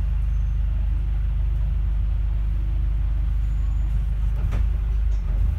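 A bus running with a steady low rumble. A faint whine starts about a second in and stops about four seconds in, and a short click comes near the end.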